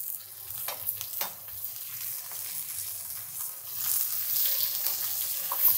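Bone-in pork loin chop sizzling in hot oil in a frying pan as it is turned over with metal tongs. There are a couple of light clicks in the first second or so, and the sizzle grows louder about four seconds in.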